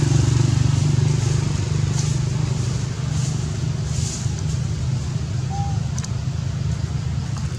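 A motor running steadily with a low hum, easing off slightly about three seconds in. There are a few faint rustles and one short high squeak a little past the middle.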